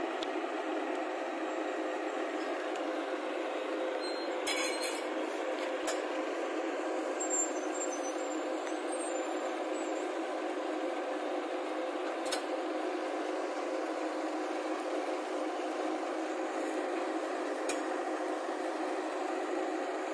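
A JCB tracked excavator's diesel engine running steadily as the machine crawls along a flatbed trailer deck, with a few sharp knocks scattered through.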